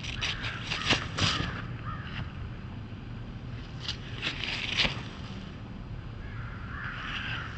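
Footsteps crunching through dry fallen leaves and grass, in two bunches of crackly steps, over a steady low rumble.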